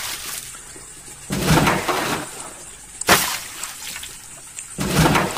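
Water splashing and running off in a steel basin as cupped hands scoop up goldfish, three splashes in all.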